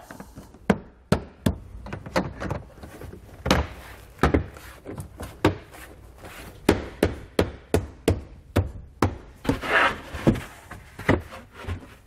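Hands pressing a 2020 Honda CR-V's rubber weather stripping back over its plastic cargo-area trim panels: a string of irregular sharp knocks and snaps as the trim is pushed into place, with a short rubbing sound late on.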